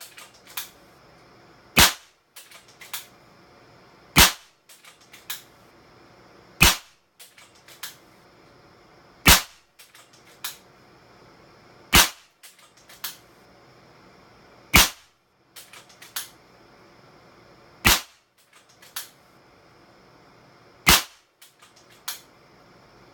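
Kral Puncher Mega .25 calibre PCP air rifle firing eight shots, one every two and a half to three seconds. Between shots come smaller metallic clicks as the cocking lever is worked to chamber the next pellet from the magazine.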